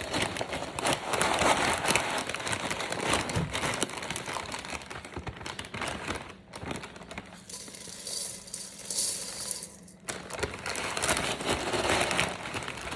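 Crispy puffed rice cereal crinkling and pattering as cupfuls are scooped and poured into a mixing bowl, with dense rustling that swells and eases.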